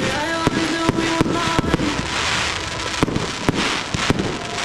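Aerial fireworks going off: a rapid run of sharp bangs and crackling, several reports a second, as shells burst into glittering stars.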